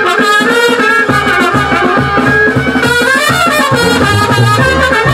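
Traditional folk band music played live: wind instruments carry a melody, and a drum beat comes in about a second in.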